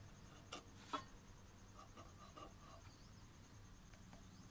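Near silence with a marker pen being used on a small steel plate: two light taps about a second in, then a few faint short squeaks of the marker tip.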